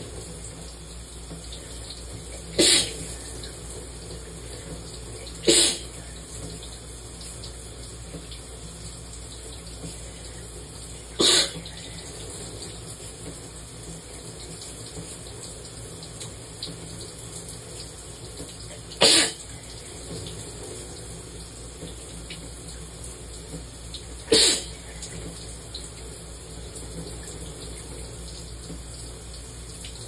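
Five loud sneezes at irregular intervals over the steady hiss of a running shower.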